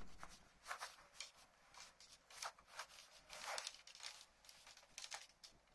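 Faint rustling and light ticks from handling a plastic toy transformation belt and its cartridge, with clothing rustle, over near silence.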